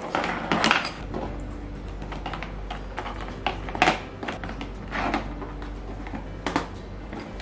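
Hard plastic clicking and knocking as pink plastic tubes are pushed into purple plastic connector joints of a toy castle frame and handled on a table: a few separate clicks, the loudest about four seconds in.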